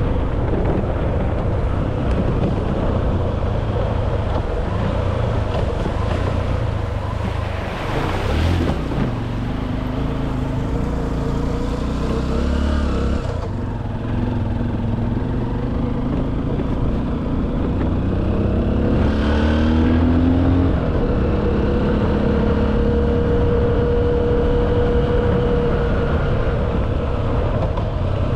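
An engine running steadily with wind noise, its pitch rising and falling a little in the second half.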